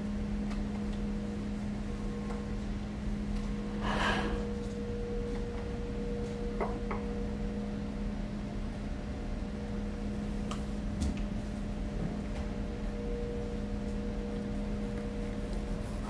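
Steady mechanical hum of commercial kitchen equipment, a low drone with a held tone, with a short burst of noise about four seconds in and a few faint clicks.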